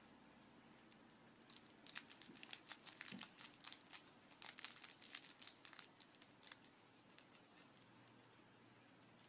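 Crinkly red plastic wrapper being crumpled between fingers, a dense run of quick crackles that starts about a second and a half in and thins out after about six seconds.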